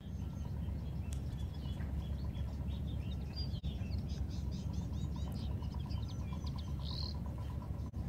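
Wild birds singing, a busy run of short chirps and trills, over a steady low rumble.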